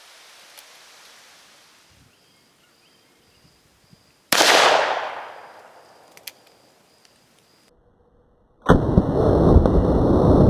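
A single gunshot about four seconds in, its echo dying away over a second and a half. Near the end a loud, steady rushing noise starts abruptly.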